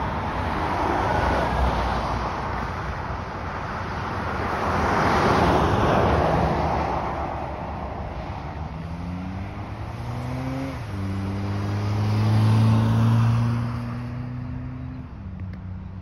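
Road traffic: two cars pass one after another, then a vehicle's engine revs up and drops in pitch at a gear change about eleven seconds in. It runs on steadily and then fades away near the end.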